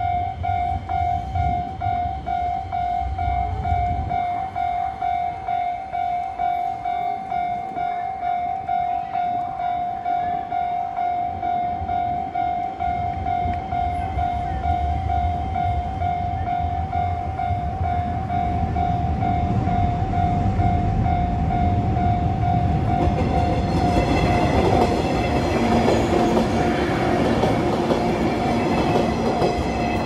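A Japanese railway level-crossing alarm dings steadily, a pulsing electronic bell about twice a second. Under it a train rumbles across the viaduct overhead. From about three-quarters of the way in, a green JR West 103-series electric train grows louder as it runs through the crossing at ground level.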